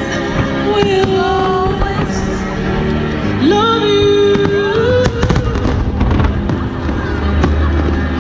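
Aerial fireworks bursting, with a cluster of sharp bangs and crackles about five to six seconds in and a low rumble near the end, heard under a slow song with a held sung melody.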